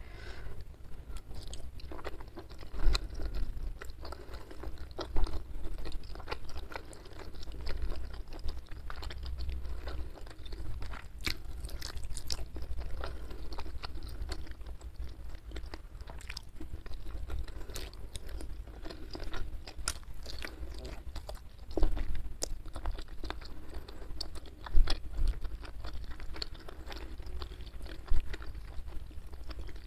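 Close-miked chewing and crunching of hand-fed mouthfuls of rice with sambal squid and petai beans, full of small wet mouth clicks, with a few louder crunchy bites scattered through.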